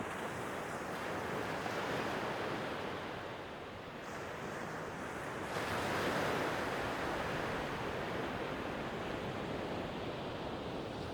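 Sea waves washing on the shore, a steady surf wash that swells louder about halfway through.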